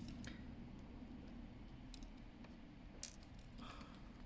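Faint, scattered small clicks and taps from screws and a screwdriver being handled and set in place on a laptop's bottom cover, with one sharper click about three seconds in.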